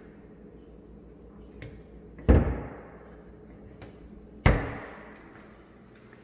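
A door shutting twice: two sharp thuds about two seconds apart, each with a short ring-out.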